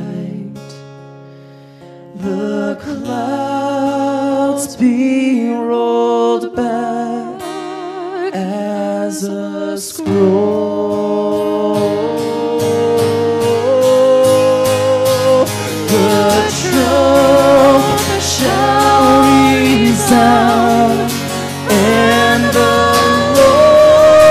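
A man and a woman singing a worship song together to a strummed acoustic guitar. It starts soft and sparse, and from about ten seconds in the strumming becomes steady and the music fuller and louder.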